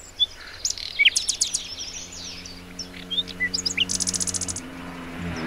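Songbirds chirping and singing, with a fast trill about four seconds in. A faint, steady engine hum sits underneath and grows louder near the end.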